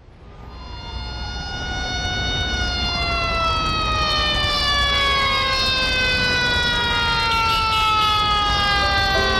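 Mechanical siren wailing and slowly winding down, its pitch falling steadily throughout; it fades in over the first second.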